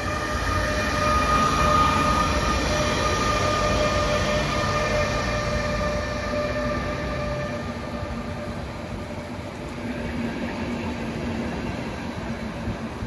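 ÖBB class 1116 Taurus electric locomotive pulling away, its electric drive giving steady whining tones over the rumble of the wheels; the tones fade about halfway through as the double-deck coaches roll past.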